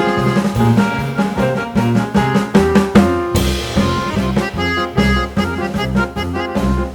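Background music with a steady drum beat and instruments.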